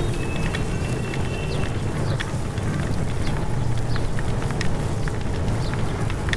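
Wheeled suitcase rolling over paving stones: a steady low rumble and rattle, with scattered light clicks throughout.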